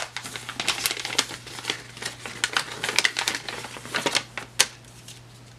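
Paper wrapping on a small package being unwrapped by hand, with quick, irregular crackling and rustling that stops about a second before the end.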